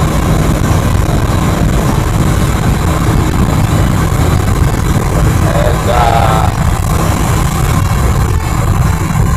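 Steady low rumble of engine and road noise inside a Scania coach cruising fast on a highway at about 140 km/h. A brief wavering tone sounds about six seconds in.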